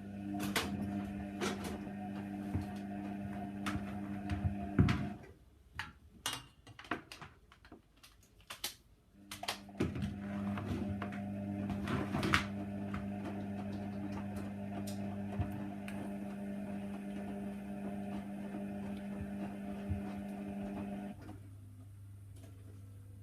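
Hoover Nextra HNWL 7146 washer dryer tumbling a Cotton 60 wash. The drum motor hums steadily with knocks from the turning load, pauses for a few seconds with only scattered clicks, then turns again for a longer spell before stopping near the end: the wash-phase tumble-and-rest rhythm.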